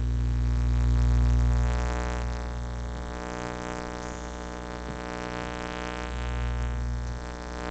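Microwave oven running: a steady electrical hum that swells and fades as it runs.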